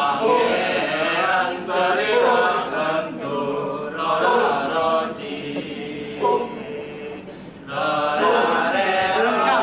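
Male chorus chanting together in a Balinese kecak chant, in held, bending pitches. It drops back about two-thirds of the way through, then swells loud again near the end.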